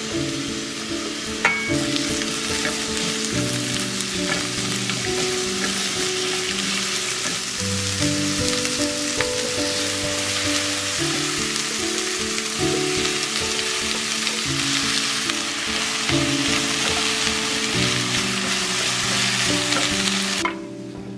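Sliced onion and bell pepper strips sizzling as they stir-fry in a frying pan, stirred with a utensil that clicks now and then against the pan. Soft background music plays underneath, and the sizzling stops abruptly near the end.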